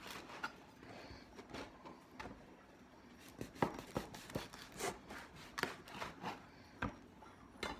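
Knife sawing through a crusty seeded roll: irregular short scraping strokes and knocks, louder and closer together from about halfway through.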